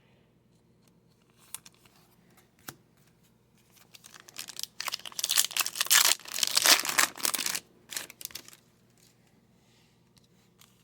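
A foil trading-card pack wrapper being torn open and crinkled: a loud rustling tear lasting about four seconds near the middle, after a couple of faint clicks.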